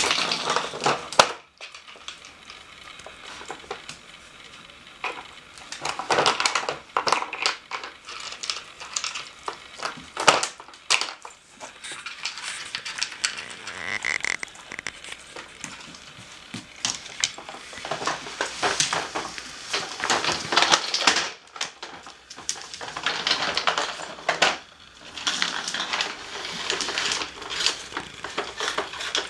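A dog pawing and nosing at a plastic Nina Ottosson treat puzzle: irregular clattering and knocking of the plastic board and its bone-shaped pegs, with a few short pauses.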